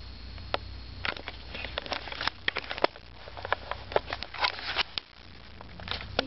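Close, irregular scratching, rustling and clicking of a kitten pawing and clawing at a fleece top and its drawstring, mixed with the rub of the handheld camera against the cloth. The clicks come thickest in the middle and thin out near the end.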